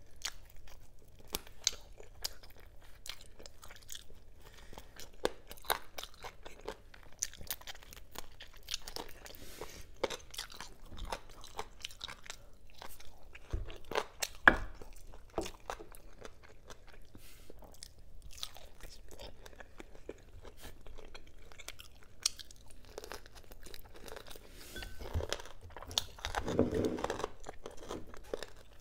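Close-miked chewing and biting as a person eats adobo-braised pork and chicken wings with her hands, with many small wet mouth clicks. A sharper knock comes about halfway, and a short low hum comes near the end.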